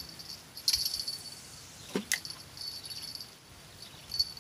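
Insects chirping in repeated high-pitched rattling bursts that stop and start, with a few sharp clicks and a short falling knock about two seconds in.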